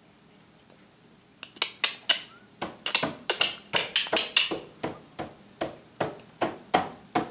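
A small child's hands striking repeatedly, about three times a second, in a run of sharp slaps and claps that starts about a second and a half in.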